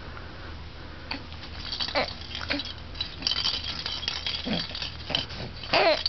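Clear plastic rattle ball with loose beads inside rattling and clicking irregularly as it is shaken and mouthed by a baby. A short vocal sound from the baby comes near the end and is the loudest moment.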